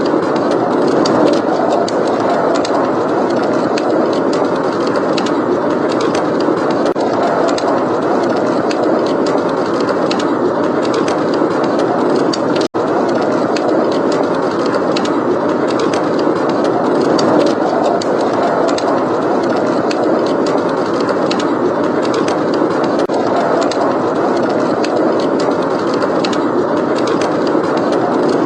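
Steady blizzard wind blowing, with a wood fire crackling in many small sharp pops over it. The sound drops out for an instant about halfway through.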